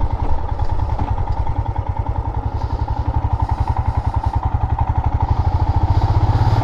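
Royal Enfield Himalayan's single-cylinder engine running with an even, rapid pulsing beat, growing a little louder toward the end.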